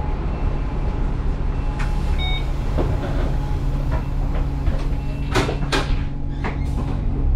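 Alexander Dennis Enviro400 double-decker bus heard from inside the cabin, its engine giving a steady low hum. Several knocks and rattles come over it, the sharpest two about five and a half seconds in, and a short beep sounds about two seconds in.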